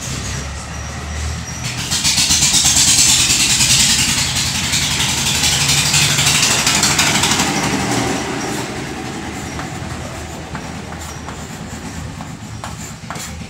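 Chalk scratching and tapping on a blackboard as a heading is written, under a loud rushing noise that swells about two seconds in and slowly fades. Short chalk clicks are heard in the later seconds.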